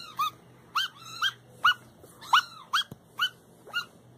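Tiny kitten mewing over and over: short, high-pitched calls that rise and fall, about two a second.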